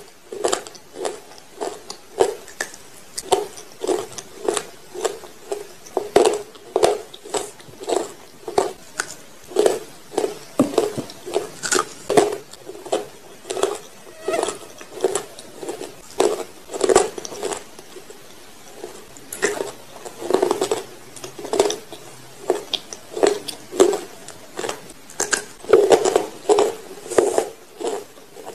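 Close-miked chewing of a chalky white substance, a steady run of crunches at about two a second.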